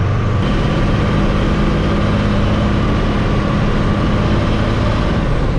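Motor vehicle engine running steadily with an even low drone.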